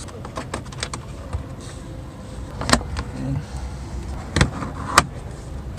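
Plastic trim retaining clips on a car being worked loose and popped out: a run of light ticks, then three sharp clicks spaced a second or more apart.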